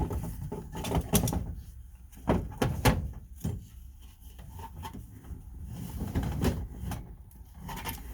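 Metal tool box drawer parts being handled and fitted into line: a string of irregular knocks, clicks and short sliding scrapes.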